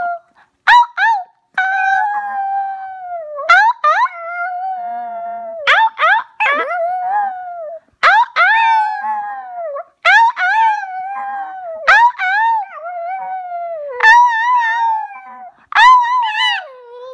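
Long-haired chihuahua howling: a run of high, wavering howls, each a second or two long, most starting with a sharp rising yip and sliding down at the end.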